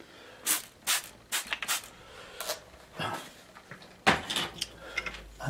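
Hand spray bottle misting water onto watercolour paints in a palette: a run of short, separate squirts. A duller knock about four seconds in.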